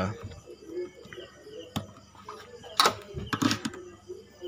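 A few sharp clicks and knocks of hands working at a motorcycle's fuel pump and its wiring socket, the loudest cluster about three seconds in.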